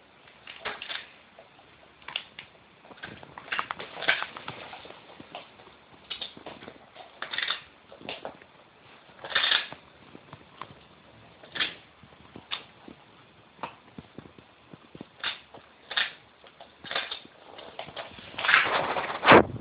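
A West Highland white terrier worrying a dog biscuit before eating it: irregular scuffles and knocks, about one a second, some short and some a little drawn out.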